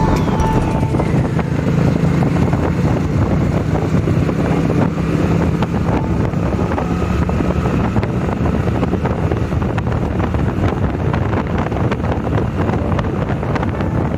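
Motorcycle riding along, its engine hum buried under steady wind noise rumbling on the microphone.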